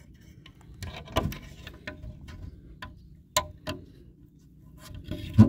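Small metallic clicks and scrapes of a bent-wire latch being worked around a screw head on a wooden hatch, with a few sharper knocks of wood and metal, the loudest near the end.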